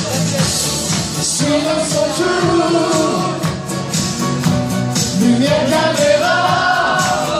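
Singers performing into microphones over amplified backing music, the sung melody lines held and bending over a continuous band accompaniment.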